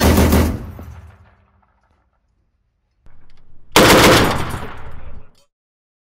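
Two bursts of automatic fire from a 30 mm AGS automatic grenade launcher. The first comes right at the start and dies away over about a second; the second, longer and just as loud, starts a little before four seconds in and stops about a second and a half later.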